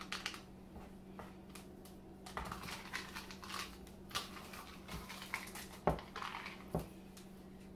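Wooden spoon stirring thick cake batter with chocolate chips in a plastic mixing bowl: irregular scraping and clicking, with a few duller knocks of the spoon against the bowl in the second half.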